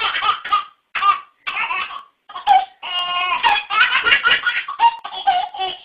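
A small child laughing hard, high-pitched, in a run of short bursts broken by brief pauses for breath.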